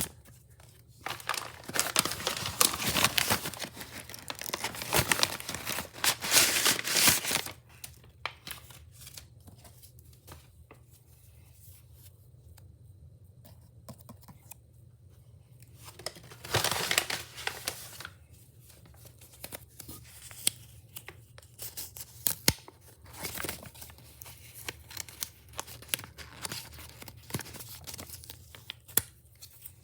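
Gift wrapping being torn and crumpled by hand: long stretches of tearing through the first several seconds, another short rip a little past halfway, and scattered crinkles and small crackles in between.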